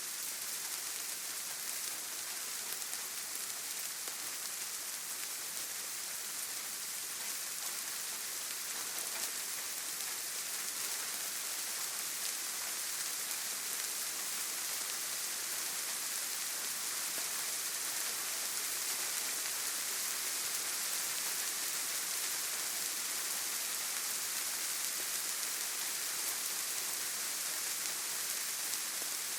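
Steady rain falling on a surface, an even hiss of many small drops without thunder.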